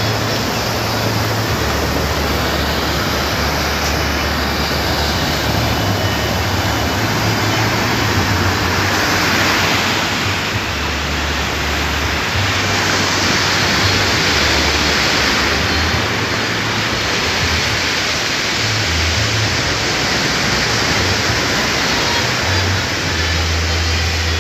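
Waves breaking on a sandy beach, a steady rush of surf that swells about ten seconds in and again a few seconds later, with wind rumbling on the microphone.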